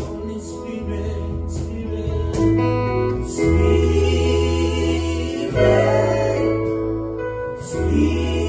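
Gospel worship music: voices singing a slow song together over keyboard, guitar, bass guitar and cajon, with long held bass notes under sustained chords.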